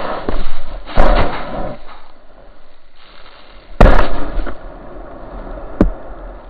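Knocks and thumps on a sandboard-mounted camera as the rider falls and slides through the sand, with low rumbling between them. The loudest thump comes just before four seconds in, with a knock about a second in and a sharp click near the end.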